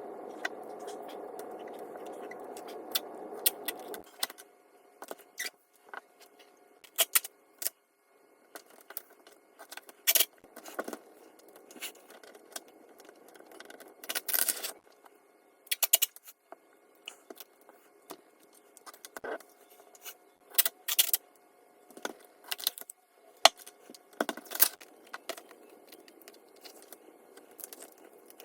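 A steady hum stops abruptly about four seconds in. It is followed by hard small parts clinking and clattering in irregular bursts, as the pieces of an armor plate are handled and set down.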